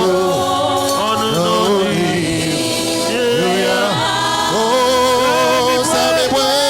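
A congregation singing a gospel hymn together, many voices in phrases that rise and fall.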